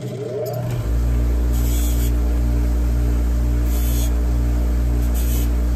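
Bench grinder with a Scotch-Brite wheel spinning up in the first second, then running with a loud steady hum. A small aluminum part is held to the wheel to deburr it, adding three brief hissing scrapes.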